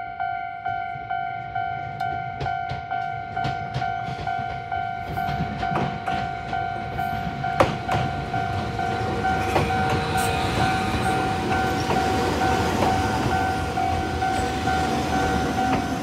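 Railway level-crossing bell ringing with the older standard tone, a two-note ding repeating evenly about two and a half times a second. From about five seconds in, a Jōmō Electric Railway electric train's rumble and wheel clicks build under it, with one sharp clack near the middle.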